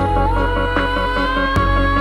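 Electronic background music with a heavy bass and a steady beat, a synth tone gliding up about a quarter of a second in.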